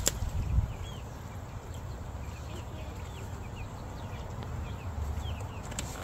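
Small birds chirping again and again in short calls over a steady low rumble, with one click at the very start.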